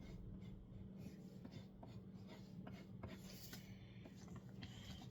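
Pencil sketching on paper: faint scratching strokes as an outline is drawn, over a steady low hum.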